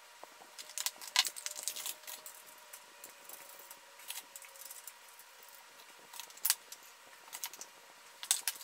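Scattered light metallic clicks and clinks, irregular, with a few louder ones, as small metal water-cooling fittings are handled and screwed into the ports of the loop's blocks.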